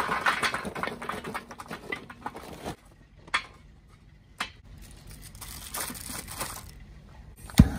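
Charcoal briquettes pouring from a bag into a stainless-steel charcoal basket in a Weber kettle grill: a dense clatter for nearly three seconds. Then single briquettes click as they are set in place by hand, and a sharp knock comes near the end.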